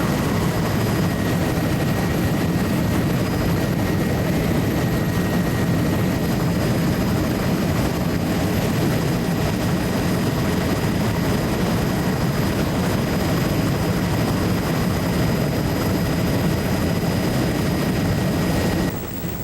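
Steady drone of the survey aircraft's engine heard from on board, with a faint steady whine above it. The level dips slightly and the hiss drops away just before the end.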